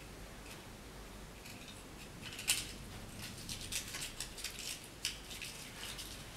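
Faint, irregular light metallic clicks and ticks, beginning about two and a half seconds in and clustering near the middle.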